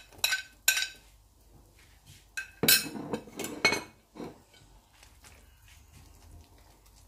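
Utensil clinks and clatters against a plate and the pan as chopped spring onions are added to the soup: a handful of sharp clinks in the first four seconds, then only faint kitchen noise.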